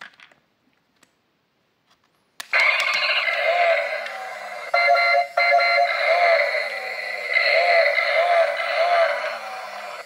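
A few faint handling clicks, then a sharp click about two and a half seconds in as a battery-powered Spider-Man balancing car toy is switched on, and its built-in speaker starts playing loud electronic music.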